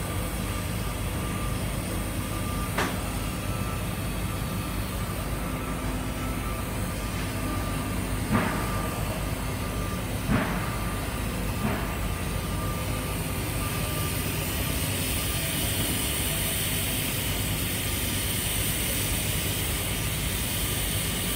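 TIG welding on stainless steel pipe: a steady hum with the hiss of the arc. The hiss grows brighter about two-thirds of the way in. Four short clicks come in the first half.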